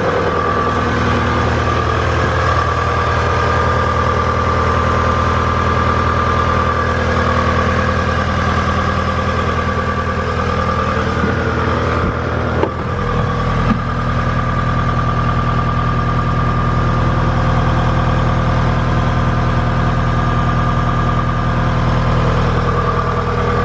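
2018 CAT 226D skid steer's diesel engine running steadily at idle, with a brief dip and a couple of short clicks about halfway through.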